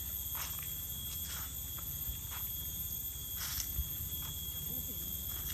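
Footsteps on a dirt path scattered with dry leaves, short irregular steps, over a steady high-pitched drone of forest insects.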